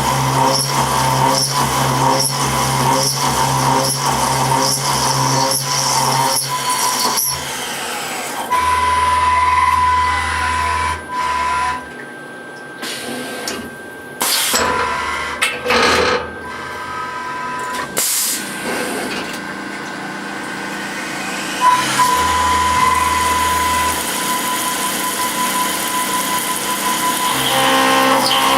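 Small CNC milling machine running a program in automatic mode. Its motors hum and whine, starting and stopping several times, with a regular rhythmic beat in the first few seconds.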